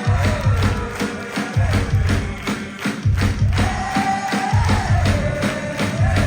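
Live rock band playing loudly: a steady driving drum beat over heavy bass, with a held, wavering melody line on top.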